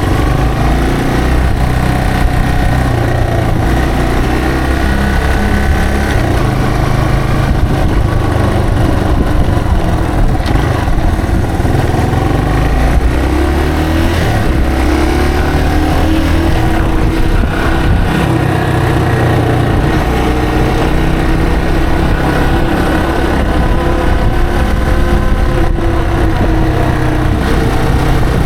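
Yamaha TW225's single-cylinder four-stroke engine running under way, its pitch rising and falling several times as the bike speeds up and slows.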